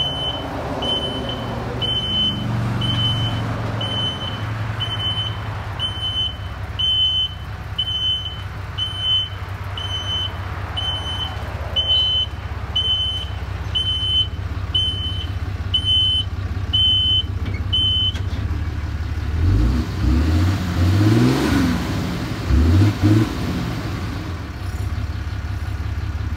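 Ram 6.7 L Cummins turbodiesel with a deleted exhaust, running out of a large black tip: a steady diesel idle, then revved in several quick blips about twenty seconds in. An electronic beep repeats a little over once a second until about eighteen seconds in.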